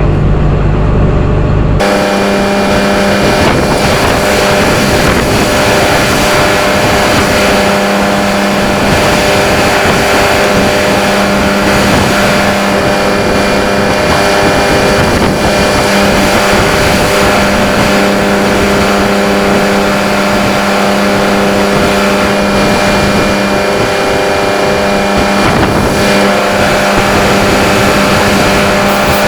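CAT 329E excavator's diesel engine running at a steady speed: a loud, even mechanical noise with a steady hum. About two seconds in the sound changes abruptly, from a deep rumble to a brighter, fuller noise.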